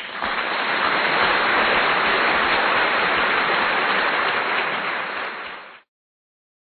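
A steady, even rushing hiss of noise with no distinct clicks or rhythm, starting abruptly and cutting off suddenly near the end.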